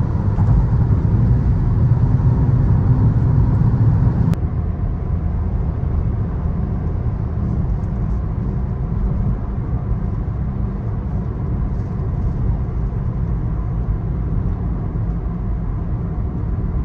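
Steady low rumble of road and engine noise heard from inside a moving car's cabin. The sound changes abruptly and becomes slightly quieter about four seconds in.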